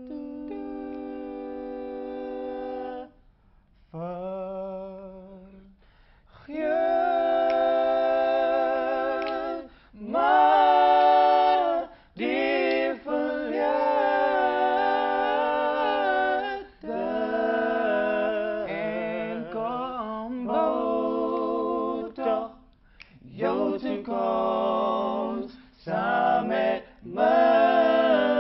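Three male voices singing a cappella in close harmony, holding sustained chords with a slight vibrato, in phrases broken by short pauses.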